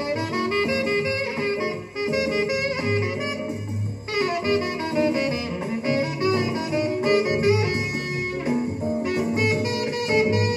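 Jazz with a saxophone lead playing from a record on a 1963 Westinghouse all-tube stereo console, heard through its speakers.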